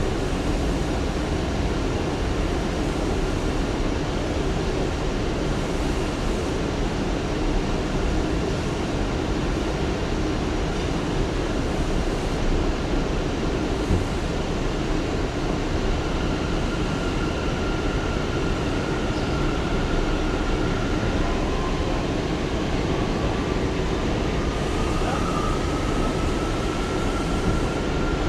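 R179 subway car in motion, heard from on board: a steady rumble of wheels and running gear on the track. Over it runs the whine of the Bombardier MITRAC AC propulsion, which rises in pitch over the last several seconds.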